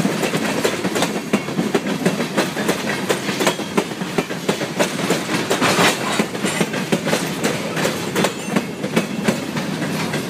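Freight train tank cars and a covered hopper rolling past, steel wheels clicking and clacking over the rail joints in a dense, uneven run of knocks over a steady rolling rumble.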